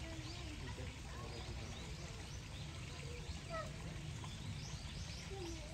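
Small birds chirping again and again over a low steady rumble, with faint distant voices.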